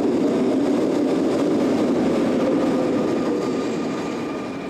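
Electric train pulling out of a station platform, a steady rumble of wheels on rails. It fades about three and a half seconds in as the last car moves away.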